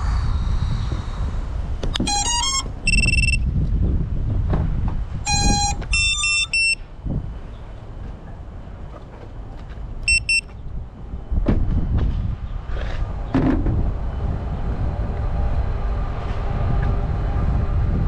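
Electronic beep tones from an FPV drone sitting powered on the ground. A quick stepped run of notes comes about two seconds in, then a held beep, then more beep runs around five to seven seconds and a short one at ten seconds, all over a steady low rumble.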